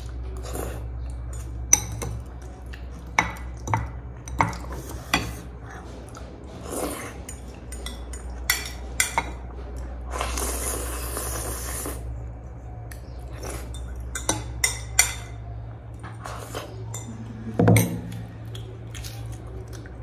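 A metal fork clinking and scraping against a glass bowl and plate during eating of thukpa noodle soup, in scattered sharp clinks. About ten seconds in comes a two-second slurp of noodles, and a duller knock a couple of seconds before the end.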